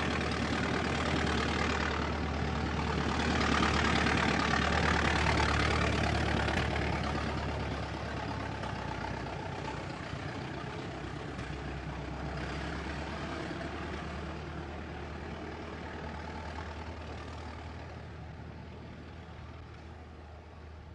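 Vintage car engine running with a rapid, even chugging. It grows louder a few seconds in, then slowly fades away over the rest of the stretch.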